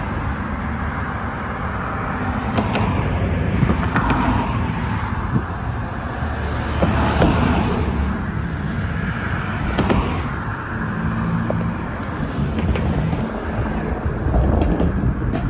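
Car driving on the road: a steady rumble of tyres and engine with surrounding traffic, swelling a little louder a couple of times near the middle.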